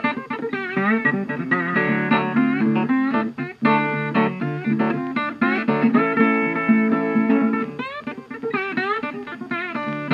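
Background music led by plucked guitar, with notes that bend in pitch.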